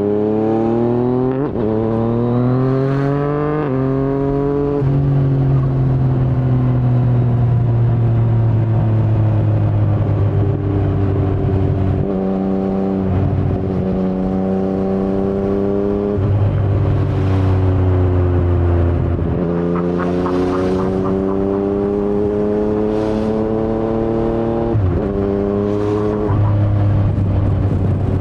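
The 847 cc inline-three of a 2019 Yamaha MT-09 through an Akrapovic carbon full-system exhaust with no dB killer, heard from the rider's seat. In the first few seconds it revs up through quick gear changes, each marked by a sudden drop in pitch. It then runs at a steady cruise and rises and falls through several more shifts.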